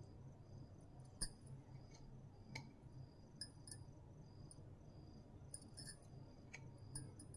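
Faint cricket chirping, repeated short high chirps that run steadily under everything. On top of it come a handful of light clinks and taps from a plate and vadas being handled, the sharpest about a second in, with more near the middle and end.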